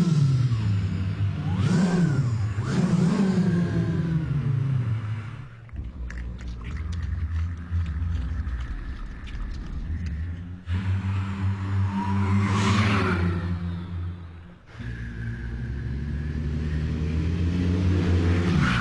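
A choir imitating a car with their voices: swooping rises and falls like an engine revving, then a stretch of quick clicks over a low steady hum, a rising sweep about two-thirds of the way in, and layered held tones near the end.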